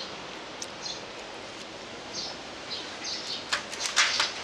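Small birds chirping in short, repeated high calls, with a quick run of sharp clicks about three and a half seconds in.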